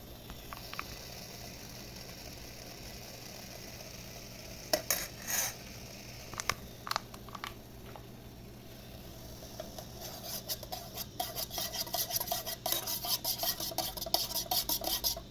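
A spoon knocking and scraping in a pot: a few separate clinks, then from about two-thirds of the way in, rapid repeated stirring strokes.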